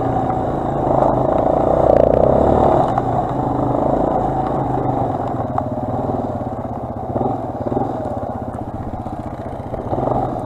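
Quad bike (ATV) engine running steadily under way as it rides through snow, revs holding fairly even and easing a little in the second half.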